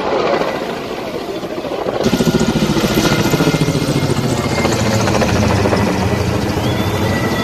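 Firefighting helicopter's rotor beating close by, a fast, steady chop that grows louder about two seconds in.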